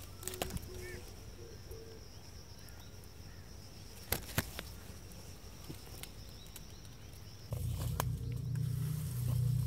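A faint, steady high-pitched insect call from the grass, with a few light clicks of handling. About three-quarters of the way through, low background music cuts in.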